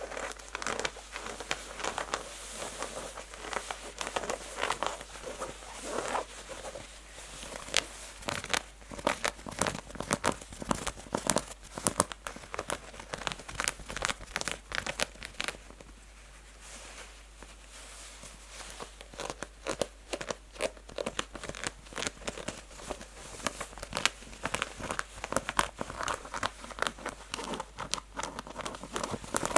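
Natural fingernails scratching rough, textured denim jeans fast and hard, a dense run of rasping scratch strokes. The scratching eases off briefly a little past halfway through, then picks up again.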